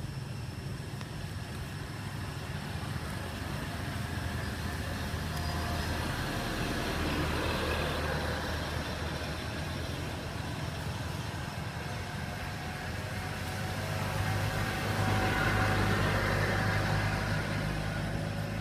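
Low, steady engine rumble of motor vehicle traffic, swelling louder about seven seconds in and again near the end.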